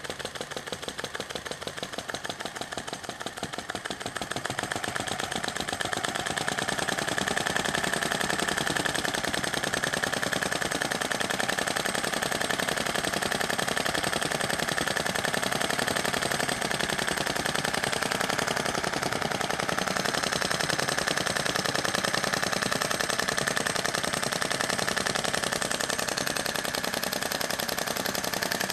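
Sai Hu SH-02 vacuum (flame-licker) model engine running on its alcohol flame: a rapid, even ticking of the engine firing and its reed valve snapping. It grows louder over the first six seconds or so, then holds steady.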